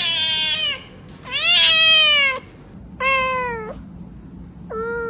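A domestic cat meowing four times, each meow long and drawn out, bending up then down in pitch.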